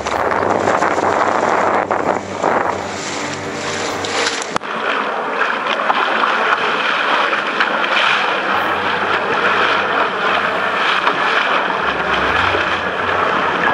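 Water rushing and splashing along the hull of a sailing dinghy under way, with wind buffeting the microphone. The noise is loud and steady, with a sudden change about four and a half seconds in.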